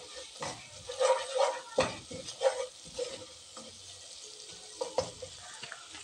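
A spoon stirring thick red sauce frying in a pan, scraping against the pan in irregular strokes over a light sizzle. Most strokes fall in the first three seconds, with a couple more about five seconds in.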